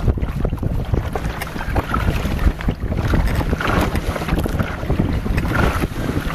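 Wind buffeting the microphone in a heavy rumble, with choppy water slapping and splashing against a wooden rowboat's hull in surges every second or so as it is rowed into a headwind.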